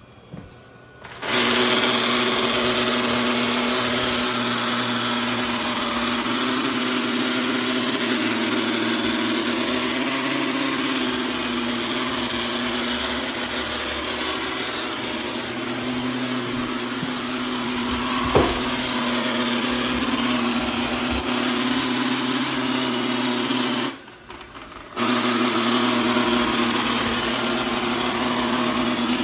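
Eufy G30 robot vacuum running with a loud, steady grinding from inside the machine, the sign of a mechanical fault in the vacuum. It starts about a second in, with one sharp knock partway through, cuts out for about a second near the end and starts again.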